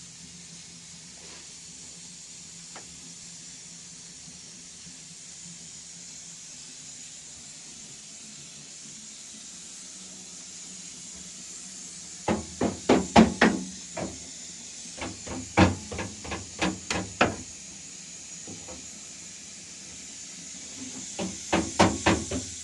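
Sharp knocks in three quick runs of about five to seven strikes each, over a steady hiss.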